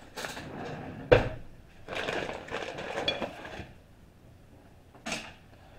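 Kitchen dishes and utensils being handled on a countertop: a sharp knock about a second in, then a stretch of scraping and clinking, like a spoon against a bowl, and one shorter knock near the end as a bowl is set down.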